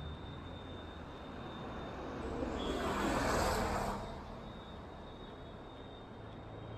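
Street traffic: a car drives past close by, its tyre and engine noise swelling to a peak about three seconds in and then fading, over a steady low traffic rumble.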